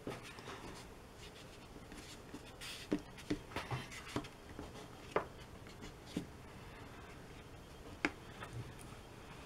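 Black marker pen drawing short strokes on watercolour paper: faint scratching with a few light ticks as the tip lands on the paper.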